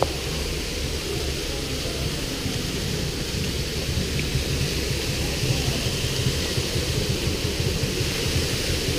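Water cascading down an artificial rock waterfall, a steady rushing noise with a deep rumble underneath.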